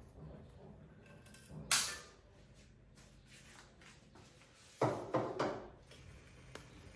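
Brief handling noises over faint room tone: one sharp clatter about two seconds in and a quick run of three more around five seconds in.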